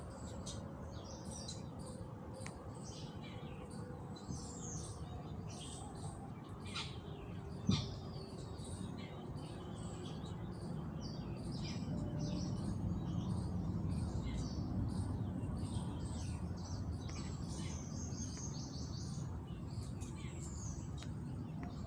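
Many small birds chirping rapidly and continuously over a steady low background rumble, with one sharp knock about eight seconds in.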